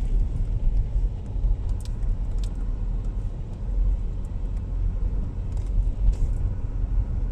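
Cabin sound of a front-wheel-drive SUV driving over a rough, muddy dirt road: a steady low rumble from the engine and tyres, with a few faint clicks and rattles as it goes over bumps.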